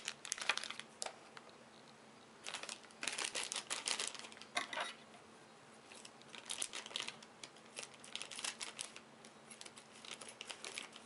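Thin plastic packaging bag being handled and crinkled, in irregular clusters of crackling rustles with short pauses between.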